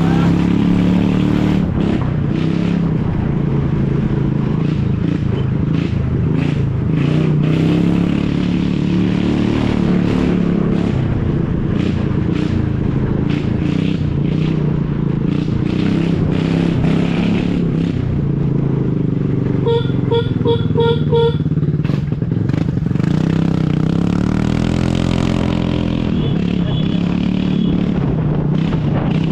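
Aprilia 125 scooter's single-cylinder engine with its silencer opened up, running loud on the move, its note rising and falling with the throttle and climbing as it revs up near the end. About two-thirds of the way in, a vehicle horn sounds in about five quick beeps.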